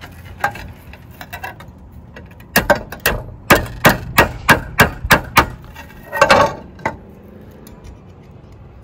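Claw hammer striking about ten quick blows at around three a second, into the gap beside a tile roof bracket, followed by a short clatter.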